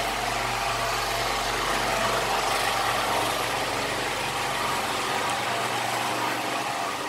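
Steady engine hum under a constant hiss; its deepest part drops away about five seconds in.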